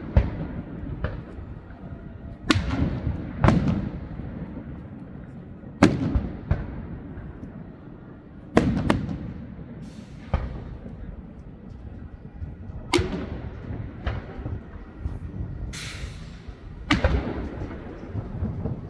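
Aerial firework shells bursting one after another, a sharp echoing bang every second to three seconds, with a short hiss a few seconds before the end.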